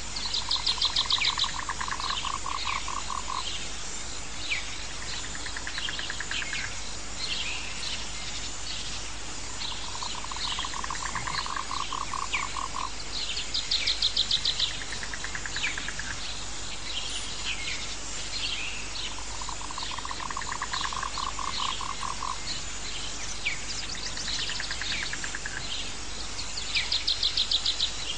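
Nature ambience of frogs and birds: a pulsing, trilling frog call about three seconds long comes back every nine to ten seconds, over scattered bird chirps. A faster, higher trill breaks in a few times and is the loudest sound.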